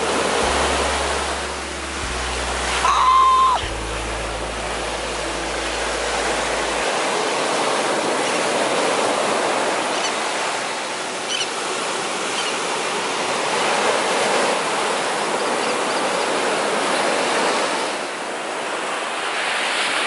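Ocean surf breaking and washing up the sand in a steady rush of waves. A short high tone rings out briefly about three seconds in.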